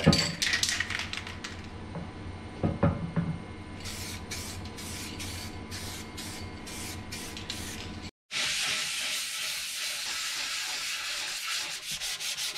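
Aerosol can of guide coat spraying onto a primed panel in a run of short hisses, about two to three a second. After a sudden break a little past the middle, a sanding block with 240-grit paper is rubbed back and forth over the coated glove box lid in a steady stroking rasp.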